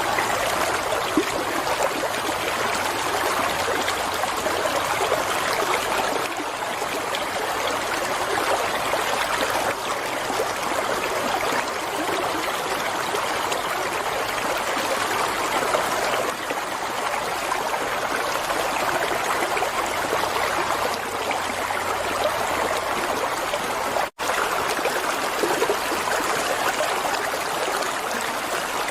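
Water flowing in a stream, a steady rushing, trickling sound, broken by a split-second gap about 24 seconds in.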